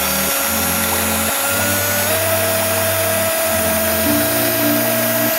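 Electric power drill running steadily at speed, spinning a rotor of drinking straws, its motor whine holding one pitch with a small step up about two seconds in. Background music plays underneath.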